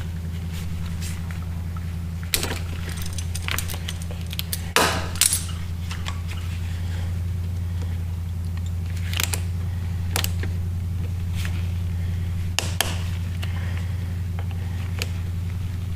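Scattered small clicks and light metallic taps from hands fitting a new inline fuel filter into the rubber fuel line and handling the spring hose clamps, over a steady low hum.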